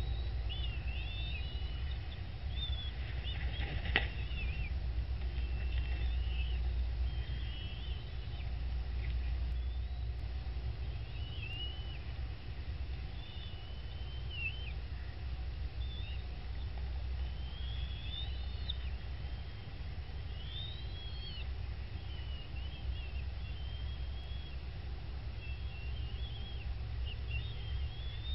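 Short, high bird chirps and twittering calls scattered throughout, over a steady low rumble, with one sharp click about four seconds in.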